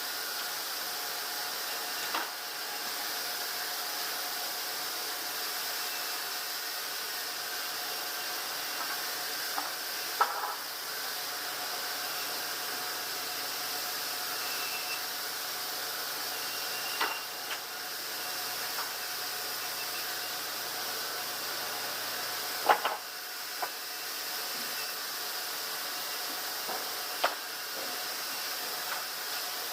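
Sawmill machinery running steadily as a constant mechanical hiss with a faint hum, broken by about five short knocks several seconds apart, the loudest a little after the middle.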